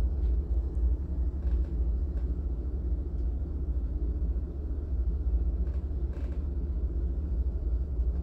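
Steady low rumble of distant ocean surf.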